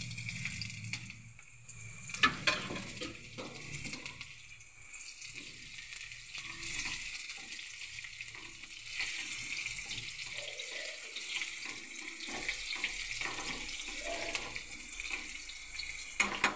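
Chopped green-onion whites sizzling in hot oil in a non-stick frying pan as they are stirred with tongs. A few sharp clicks of the tongs against the pan, with a quick run of taps near the end.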